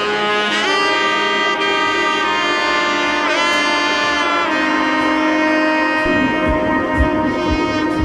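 Background music: a sustained melody line of long held notes with a wavering bend near the middle, joined by a steady drum beat about six seconds in.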